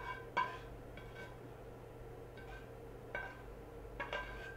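Spatula scraping and tapping inside a frying pan while the last of the cooked egg is scraped out: a handful of short clinks with a brief ringing tone, over a steady low hum.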